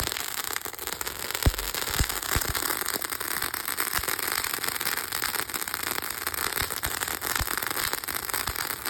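Firework fountain burning, a steady hissing spray full of crackle, with a few sharp pops, the loudest about a second and a half in.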